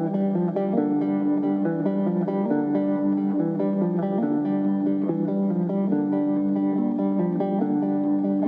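Background music: guitar playing a continuous run of plucked notes.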